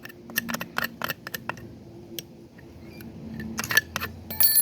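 Metal clicking and clinking as the pole saw's old chain and bar are handled and lifted off, a run of quick clicks and then a sharper clink near the end that rings briefly.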